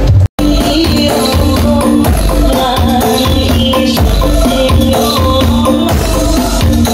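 Loud DJ dance music blasting from a carnival 'sound horeg' sound system, with a heavy bass beat and tambourine-like jingles. The sound cuts out completely for a moment about a third of a second in, then the music carries on.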